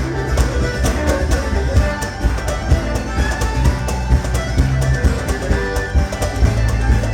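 Upbeat instrumental music with fiddle and guitar, in a bluegrass or country style, with a steady beat.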